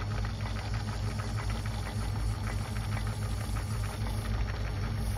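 Metal lathe running steadily, its cutting tool facing the end of a spinning brass bar, with the steady hum of the machine and a fine crackle of brass chips coming off the cut.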